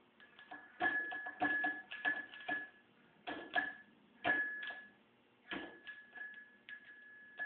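Irregular metallic clicking and ticking, in short clusters, as a motorcycle engine's crankshaft is turned over by hand with the camshaft just installed.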